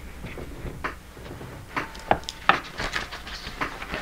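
Objects being handled and set down on a tabletop: scattered light knocks, clicks and rubbing, with a sharper knock about halfway through.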